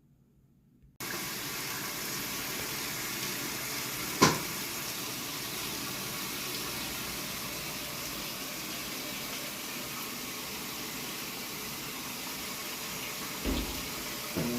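Water running steadily, starting abruptly about a second in, with one sharp click about four seconds in and a couple of knocks near the end.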